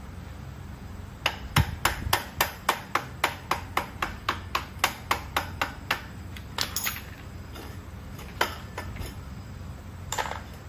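Rapid hammer strikes, about four or five a second for around five seconds, then a few scattered knocks.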